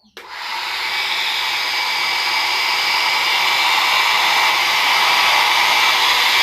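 Nova NHP-1800 1200-watt hair dryer switched on: it starts suddenly, builds over the first second as the fan spins up, then runs as a steady, loud blowing noise with a thin high whine.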